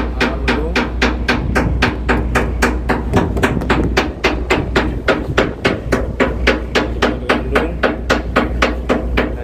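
Chipping hammers knocking rust off a ship's steel deck plating, a rapid, even train of metallic knocks, about four or five a second, over the low, steady rumble of the ship's engine.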